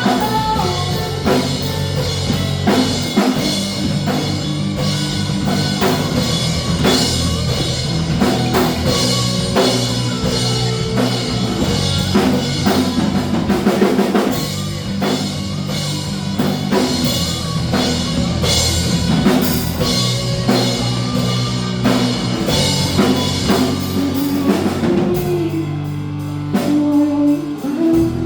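Rock band playing an instrumental passage: a drum kit playing steady, dense beats under electric guitar and bass. Near the end the drums drop back, leaving the guitar and bass more exposed.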